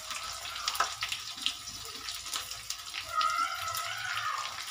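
Sliced onions sizzling in hot mustard oil in a kadhai: a steady hiss with scattered crackles. About three seconds in, a wavering tone sounds over it for about a second.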